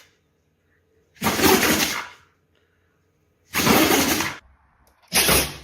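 A dog sneezing three times, each a sudden noisy burst just under a second long, a second or two apart.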